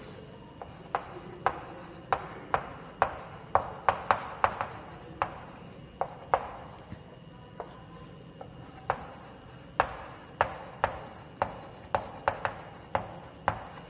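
Chalk tapping on a blackboard while words are written by hand: a string of sharp, irregular taps, about two a second.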